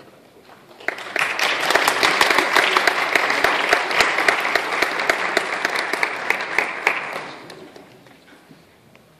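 Audience applauding: the clapping starts abruptly about a second in, holds steady, then dies away around seven seconds in.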